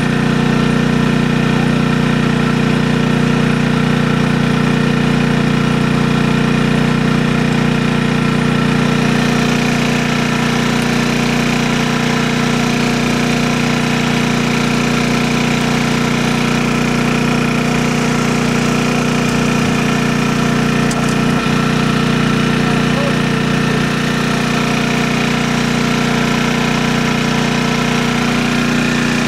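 An engine running steadily at one unchanging speed.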